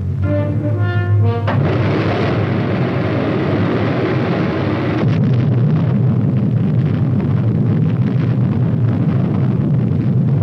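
A few short dramatic music notes, then about a second and a half in a sudden loud blast rumble from an atomic test explosion on the film soundtrack. The rumble carries on steadily and goes duller, losing its hiss, about five seconds in.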